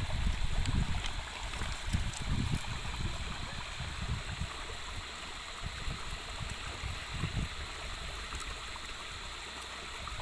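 A river running over stones, a steady rushing hiss, with a few low rumbling bumps in the first couple of seconds and again near the end.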